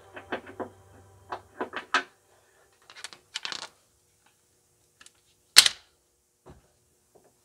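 Metal hand tools clicking and clattering in short scattered clicks and small clusters of clicks, with one sharp, louder metallic clank a little past halfway.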